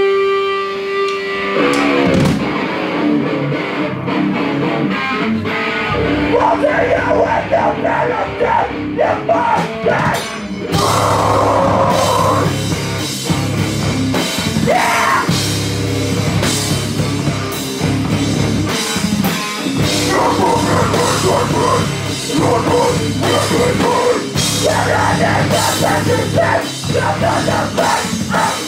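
Live rock band with electric guitar, electric bass and a drum kit playing loud and heavy. The music gets fuller and louder about ten seconds in.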